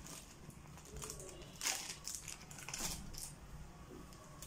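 Faint rustling of cotton fabric and light clicks of a handful of small buttons being handled and set down, in a few short strokes.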